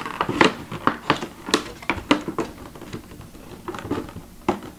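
Clear plastic mini-helmet case and cardboard box clicking and crackling in irregular sharp snaps as hands work the jammed case out of its box.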